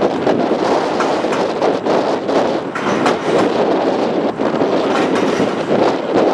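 Historic streetcar running over the rails of an open-deck steel bridge: a steady rumble of steel wheels on rail, broken by frequent, irregular clicks and clatters.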